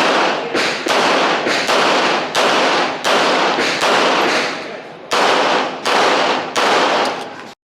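A string of handgun shots, about ten at uneven gaps, each sharp report followed by a long ringing echo; the sound cuts off abruptly near the end.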